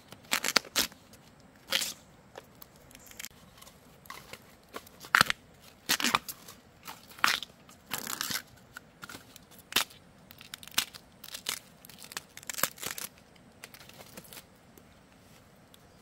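A series of short, irregular crunching and tearing sounds, roughly one or two a second with some in quick clusters, that stops a little before the end.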